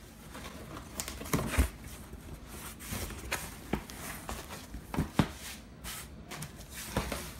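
A cardboard shipping box being opened by hand: tape pulled along the flaps and the cardboard flaps bent back, heard as about ten scattered sharp taps and scrapes with light rustling between them.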